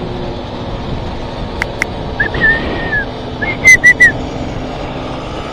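A person whistling a few notes, one held note and then three short sharp ones, close to the microphone over the steady wind and road noise of a moving ride.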